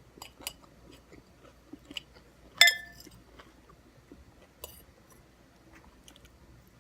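Salad being eaten: soft chewing and crunching with scattered light clicks. About two and a half seconds in there is one sharp, briefly ringing clink of cutlery against a dish.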